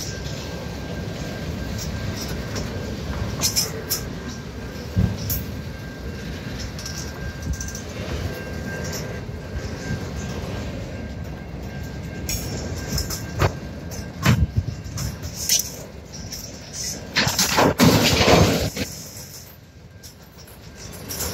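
Freight train of autorack cars rolling past: a steady rumble of steel wheels on rail, broken by sharp clicks and knocks as the wheels pass over rail joints, with a thin steady whine above it. A louder surge of noise comes about three-quarters of the way through.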